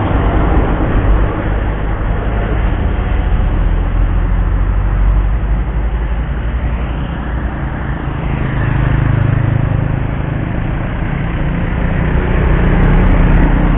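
Road traffic passing through a sharp bend: cars, a pickup truck and motorcycles driving by with engine and tyre noise. It swells as vehicles pass close, loudest near the end as a motorcycle and a minivan go by.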